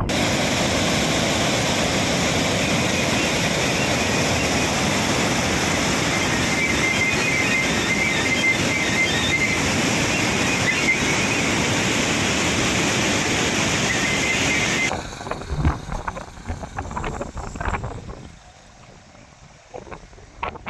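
Loud, steady rush of heavy floodwater on the Musi River. About fifteen seconds in it cuts abruptly to a much quieter outdoor sound with wind on the microphone and scattered knocks.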